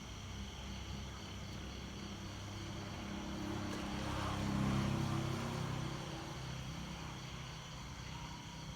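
A low engine hum that swells to its loudest about halfway through and then fades again, like a motor passing by.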